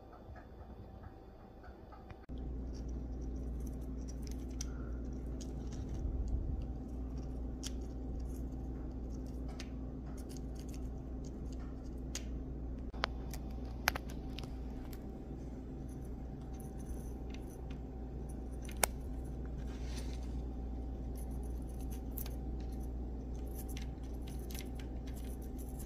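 Steady low hum of room background with light clicks, taps and rustles as small cardstock parts of a paper model engine are handled and fitted together. The hum comes in abruptly about two seconds in, and the sharpest clicks are scattered through the middle.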